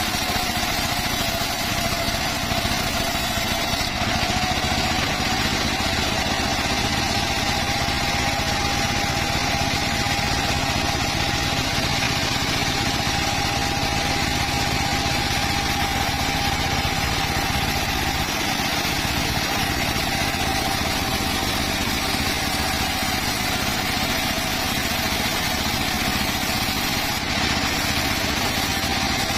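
Circular saw running steadily, a constant machine drone with a steady whine that rises slightly a few seconds in and then holds.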